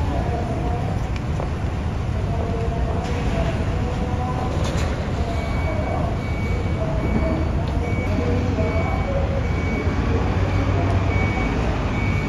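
Steady low rumble of railway station and train noise, with a faint high beep repeating about every two-thirds of a second from about five seconds in.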